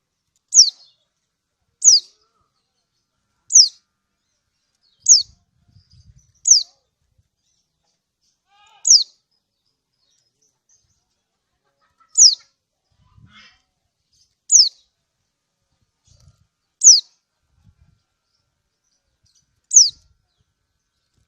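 Kecial kuning (yellow white-eye) giving ten short, high 'ciak' chirps, each a quick falling sweep, at irregular gaps of one to three seconds. It is a female's call to a male, used as a lure to set other birds calling.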